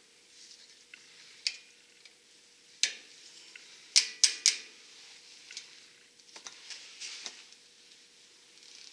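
Scattered sharp clicks and light taps of hand tools and brake parts being handled during work on a truck's front brakes, the loudest a quick run of three about four seconds in, with soft rustling between them. A faint steady hum runs underneath.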